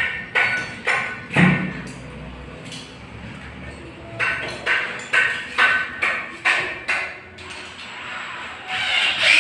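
Repeated metal knocks with a short ring, about two a second, from work on the aluminium top rail of toilet-stall partitions, followed by a brief run of a cordless drill near the end.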